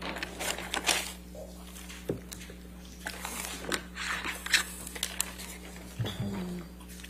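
Scattered rustling, crinkling and clicking handling noises picked up by a courtroom microphone, over a steady low electrical hum, with a brief murmur near the end.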